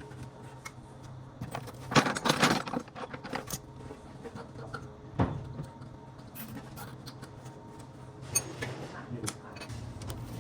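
Metal tools clinking and rattling against metal parts while a small fan motor is bolted onto its mounting base, with a cluster of clinks about two seconds in and single knocks later. A steady low hum runs underneath.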